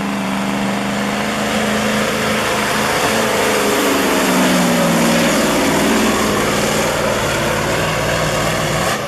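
Semi truck's diesel engine running flat out under load while pulling a sled, its note holding steady and then dropping in pitch about halfway through as the load builds and the engine is pulled down.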